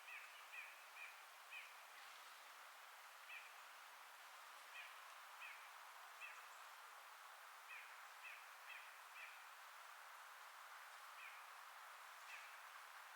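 Faint forest ambience: a steady hiss of wind through the leaves, with a bird repeatedly giving short, sharp call notes, some singly and some in quick runs of two or three.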